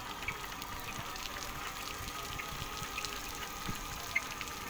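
Wet-type automatic solar-panel cleaning robot at work: water spraying and running over the panels, with a steady whine and a few small ticks.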